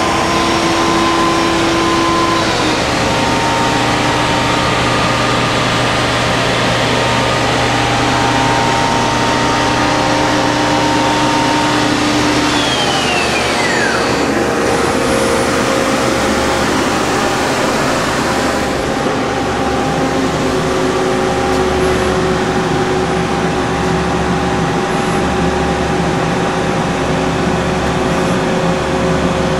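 Okuma Crown L1420 CNC lathe running through a program cycle: steady machine noise with whining tones from the drives that hold, glide down in pitch about 13 seconds in, and settle at new pitches as the cycle moves on.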